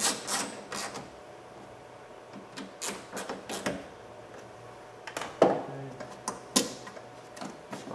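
Ratchet with an 8mm socket clicking in short runs as the side mirror's mounting nuts are tightened, followed by a few sharper, louder knocks and clicks.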